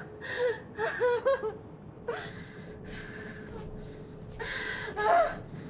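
A person's short vocal sounds, a few quick bursts in the first second and a half and another cluster near the end, over a steady hum.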